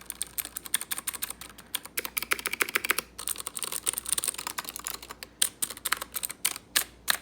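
Fast typing on a Ducky One 2 Mini mechanical keyboard with clicky Cherry MX Blue switches: a rapid run of sharp key clicks that thins to a few separate keystrokes near the end.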